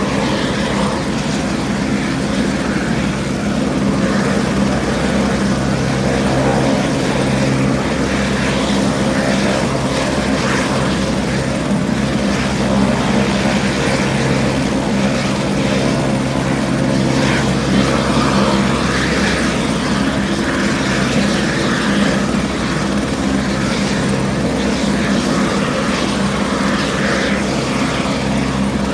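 A medevac helicopter running on the ground ahead of lift-off. Its turbine and main rotor give a steady, loud drone, with the rapid even beat of the rotor blades underneath.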